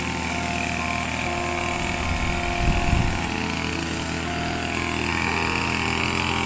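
Petrol backpack brush cutter running steadily at cutting speed, a continuous engine drone with a high whine over it. A brief low bump about three seconds in.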